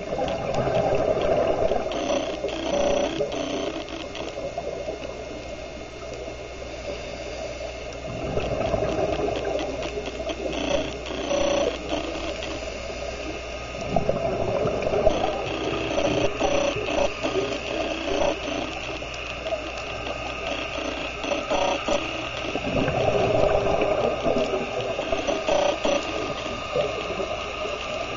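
A scuba diver's breathing heard underwater: the regulator hissing and exhaled bubbles rushing, swelling and fading every several seconds.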